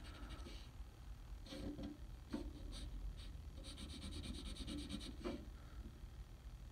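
Graphite pencil scribbling on paper in quick back-and-forth shading strokes, coming in several short runs with the longest from about three and a half to five seconds in.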